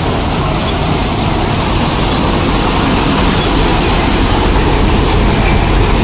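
Balkar combine harvester running at full working speed while cutting wheat: a loud, steady drone of engine and threshing machinery.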